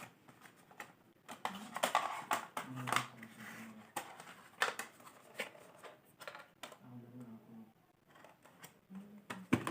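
Handling of earphone packaging: irregular sharp clicks and crinkles from cardboard and plastic being moved and opened by hand.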